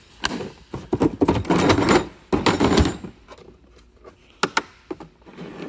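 Hard plastic tool cases being shifted and knocked against each other in a tool box drawer: a stretch of scraping and rubbing about a second in, and a few sharp clicks in the second half.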